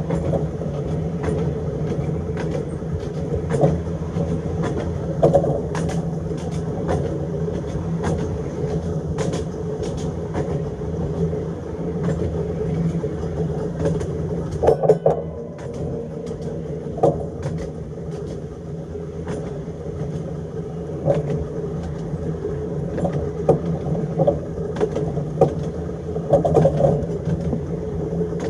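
Electric tram running along the track: a steady motor and gear hum, with irregular clicks and knocks from the wheels on the rails.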